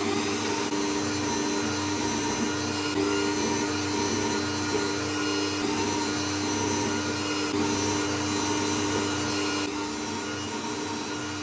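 Bosch bench drill press motor running steadily as a split-point bit drills holes in an acrylic glass sheet.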